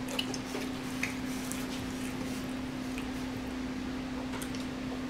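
Someone eating: a few small, sharp clicks and mouth sounds scattered through, over a steady low hum.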